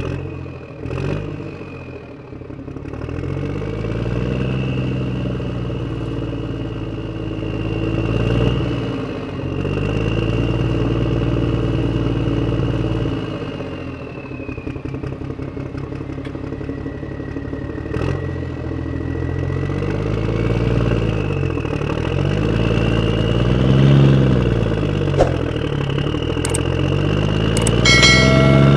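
Tractor engine sound effect, revving up and falling back again and again, about six times, with a thin high whine running over it.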